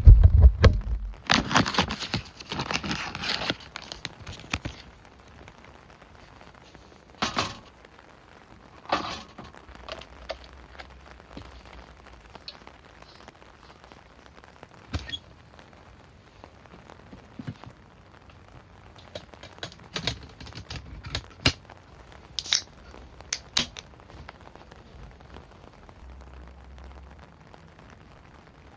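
Close handling noises: a heavy thump at the start, a dense rustle for about three seconds, then scattered sharp clicks and light knocks spread through the rest.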